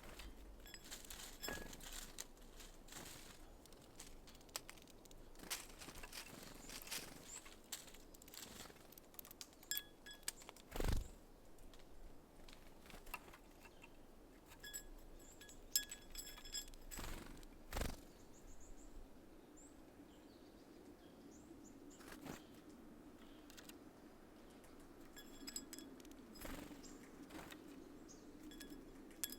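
Small wild birds at a seed feeder: scattered short high calls over many light taps and clicks, with two louder knocks about 11 and 18 seconds in.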